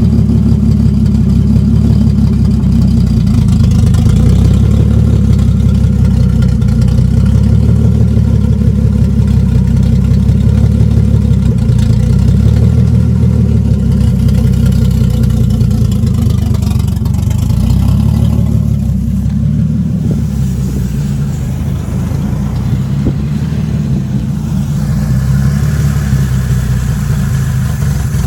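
Freshly rebuilt, turbocharged Lexus IS300 straight-six engine running under way, a steady deep engine note. It eases off and gets quieter about two-thirds through, then builds again near the end.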